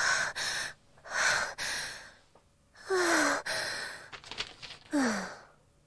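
A young woman's breathy sighs and gasps, about four or five in a row, two of them trailing off with a falling pitch. They are her speechless reaction to being handed a chore.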